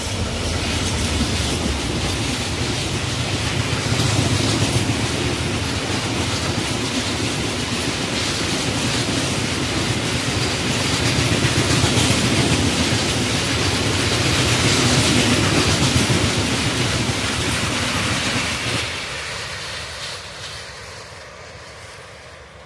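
A long freight train of container wagons passing close by at speed, its locomotive going by at the start. A steady rolling rumble follows, with wheels clattering over the rail joints, and it fades away from about nineteen seconds in as the last wagons recede.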